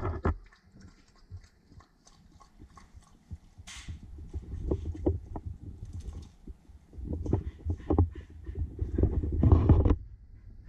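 A corgi lapping water from a steel bowl, then a run of soft taps and thumps as it lifts its head and moves about on the tile floor, panting.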